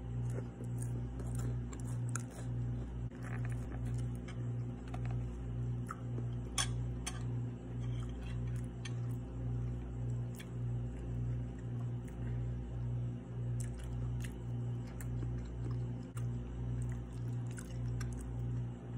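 Someone chewing a mouthful of pasta, with scattered light clicks of chopsticks against the plate. A steady low hum pulsing about twice a second runs underneath and is the loudest sound.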